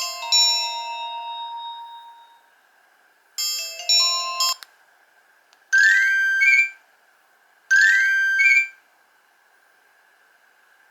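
Nokia 1800 mobile phone ringtones: a chiming tone fades out over the first two seconds, a short electronic melody plays at about three and a half seconds, then a brief rising electronic alert sounds twice, two seconds apart.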